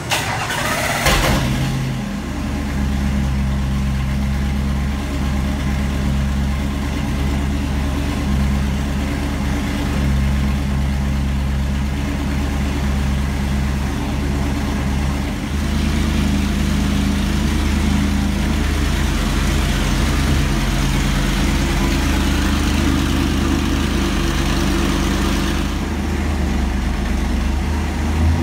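7.3L Godzilla Ford V8 running on an engine dyno with open long-tube headers, idling steadily. There is a brief louder burst about a second in.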